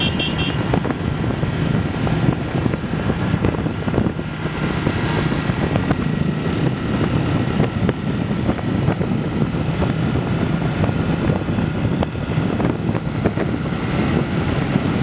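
Small motorbike engine running steadily at cruising speed, with road and wind noise.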